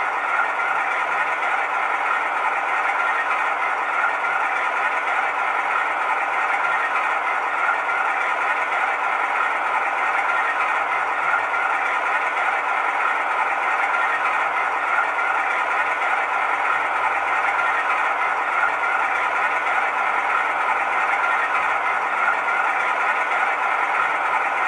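Zimo ZS47A sound decoder in a model Class 47 diesel locomotive playing the Class 47's Sulzer diesel engine sound through its small bass-reflex speakers, idling steadily with the locomotive at a standstill. The sound is even throughout and has little bass.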